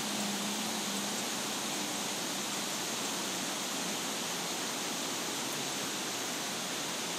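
Steady, even rushing noise with no separate events, and a low steady hum that stops about a second in.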